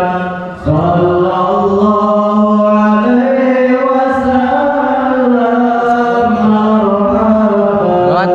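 Islamic devotional chanting by a single voice, holding long melodic notes that step slowly up and down, with a short pause for breath about half a second in.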